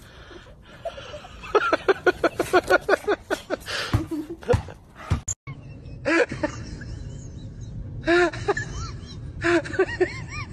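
A person laughing in a quick run of short pulses, then, after a cut, a small dog whining in short high cries that rise and fall, several in the second half.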